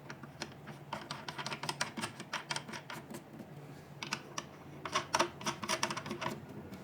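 Irregular light clicks and taps of small parts being handled and fitted while a bracket is attached to a machine, with a denser, louder cluster a little past the middle.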